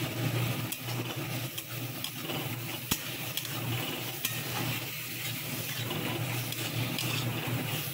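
Metal spatula stirring and scraping soya chunks and vegetables around a hot kadai, with a steady sizzle of frying and scattered clicks of the spatula against the pan, one sharper click about three seconds in.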